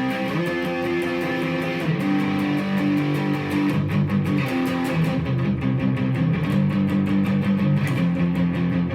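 Electric guitar, a Fender Stratocaster through an Orange amp set for a light crunch, playing punk-rock style strummed chords: a lightly distorted, chopsy rhythm of quick, even strokes, with the chord changing every second or two.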